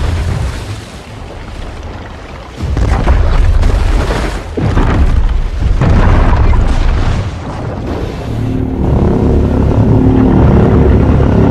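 Godzilla film sound effects: deep, heavy rumbling booms that swell in several surges, with a layered pitched tone joining in about two-thirds of the way through.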